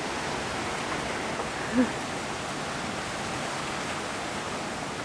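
Strong storm wind rushing steadily, with a brief short pitched sound about two seconds in.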